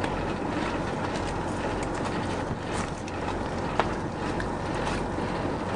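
Boat outboard motors idling steadily with a low hum and a constant noise, broken by scattered light clicks and one sharper knock a little before four seconds in.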